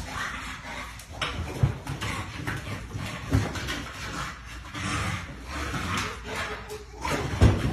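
American bully dog making noises as it jumps up at balloons on a bench, with several dull thumps, the loudest near the end.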